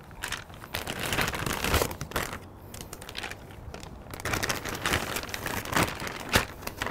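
Plastic zip-top bag crinkling and rustling in irregular bursts as it is pulled open and a thick ribeye steak is pushed into it, with a sharp tap near the end.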